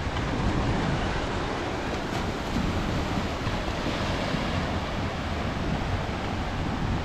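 Sea surf washing onto the sand, with wind buffeting the microphone in a steady low rumble.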